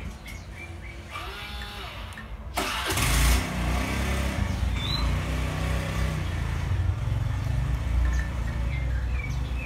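An engine running with a low rumble that gets louder about two and a half seconds in and stays steady after that.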